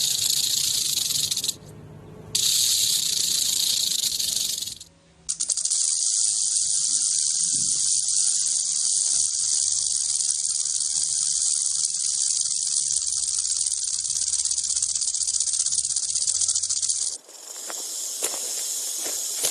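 Rattlesnake shaking its tail rattle: a continuous, steady high buzz that breaks off briefly twice early on and shifts to a different-sounding rattle near the end.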